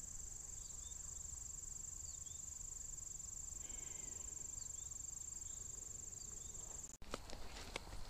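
Insects trilling in one steady, high, fast-pulsed drone, with faint short bird chirps every second or two; it cuts off abruptly about seven seconds in.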